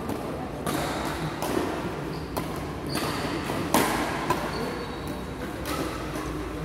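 Badminton rally: sharp racket strikes on a shuttlecock about every second, with brief squeaks of shoes on the court floor.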